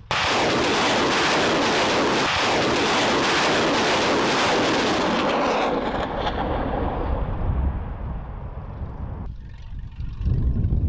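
Tornado-G multiple rocket launcher firing a salvo of 122 mm rockets: a continuous rushing blast with rapid crackling from the successive launches, starting suddenly and lasting about six seconds before fading away. Near the end the low rumble of the launcher truck's engine takes over.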